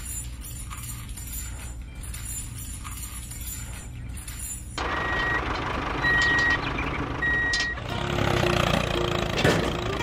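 A steady low hum, then about halfway a sudden louder stretch of vehicle noise with a reversing alarm beeping three times, about a second apart, at one steady pitch. Lower broken tones follow near the end.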